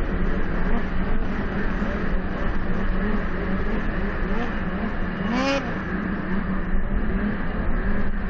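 Several racing snowmobile engines revving, their pitch repeatedly rising and falling, with one louder rev about five seconds in, over a steady low hum.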